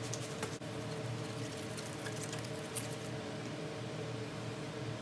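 Short scratchy hissing strokes from wet-sanding a plastic headlight lens with a sanding sponge and squirting water from a spray bottle. They stop about three seconds in, over a steady low hum.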